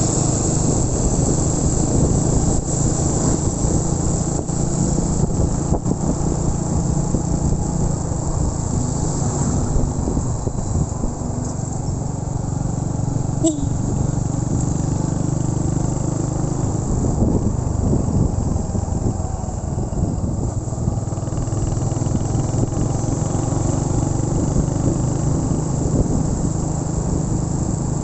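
Motorcycle engine running steadily on the move, an even low hum with a hiss over it and one brief sharp click about halfway through.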